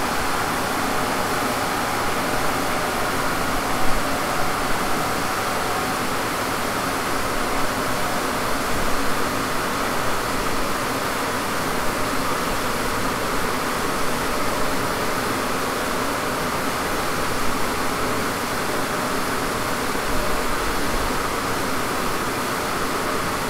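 Steady rushing noise from a car's wheels and a rolling-road dyno's rollers coasting down after a full-throttle power run, clutch engaged.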